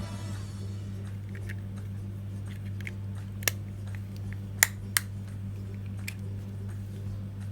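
Sharp plastic clicks and snaps as the earbud charging case's shell is pried apart with a slim tool, three loud ones bunched in the middle among a few fainter ones, over a steady low hum.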